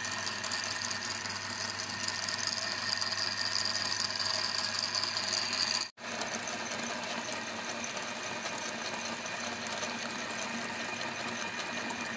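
Meat grinder grinding grapes: a steady mechanical whir with many fine clicks, broken by a brief drop-out about six seconds in.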